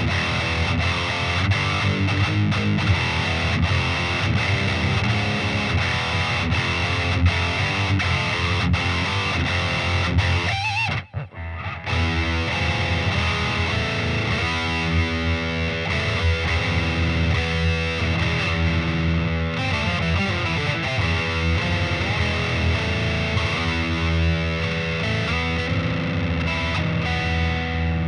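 Heavily distorted electric guitar, a Solar A1.7D LTD played through a Peavey Vypyr 60-watt combo amp. It plays rapid repeated picking, stops briefly about eleven seconds in, then goes on with sustained riffs and chords.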